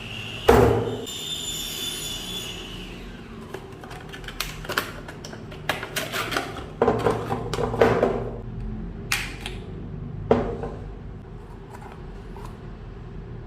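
Irregular knocks, clicks and rustles of small hard parts and their packaging being handled and unpacked. The sharpest knock comes about half a second in, and bunches of handling noise follow about halfway through.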